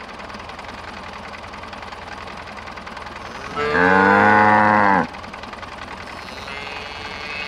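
A cow moos once, one long call of about a second and a half starting about three and a half seconds in, over a tractor engine running steadily underneath.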